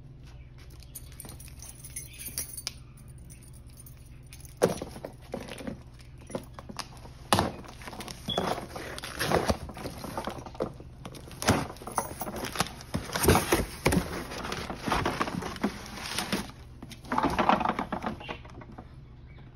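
Cardboard shipping box being opened by hand: packing tape slit, flaps pulled back and the contents handled, giving irregular scrapes, clicks and rustles, with a denser rustle of plastic-wrapped packaging being lifted out near the end.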